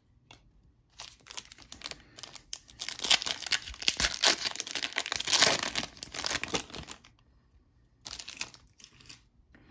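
Foil trading-card pack wrapper being torn open and crinkled by hand: a dense crackle that starts about a second in, is loudest in the middle and stops, followed by a short rustle near the end.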